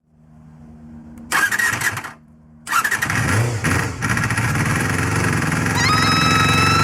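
Honda MC23 Jade's 250 cc inline-four engine being started: a brief crank that stops, then a second crank about three seconds in on which the engine catches and runs with revs rising and falling. A high whistling whine joins near the end.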